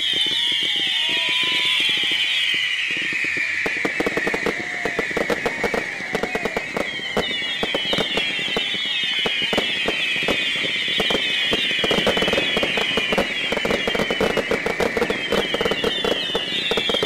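Consumer fireworks going off in quick succession: a chorus of shrill whistling effects, many falling in pitch, over dense crackling and popping. The crackle thickens in the second half.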